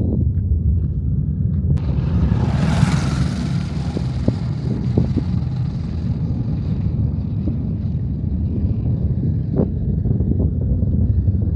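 Low, steady rumble of a distant LVM3 rocket's solid boosters during its climb after liftoff. About two seconds in, a hiss starts suddenly, then fades out slowly over several seconds.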